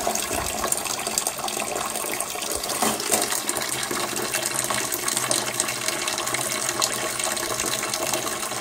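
Water pouring in a steady stream from a hole drilled in a waterlogged boiler expansion tank, splashing into a part-filled plastic bucket.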